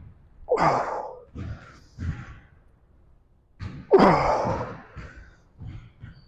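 A man grunting and exhaling hard with effort through lifting reps: two loud grunts that fall in pitch, about half a second and four seconds in, with shorter, quieter sounds between them.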